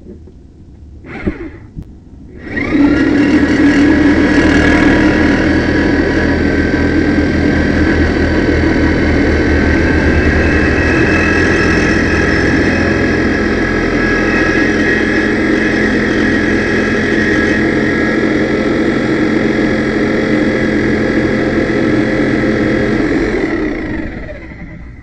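Power saw running steadily as it cuts through the steel exhaust pipe to take out the fouled stock catalytic converter. There is a short burst about a second in, then the motor spins up a couple of seconds in, keeps running for about twenty seconds and stops near the end.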